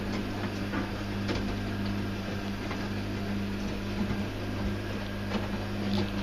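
Candy CT106 top-loading washing machine starting its cycle after its door-lock switch was replaced: a steady electrical hum with a few light clicks, showing the machine now responds to the start button.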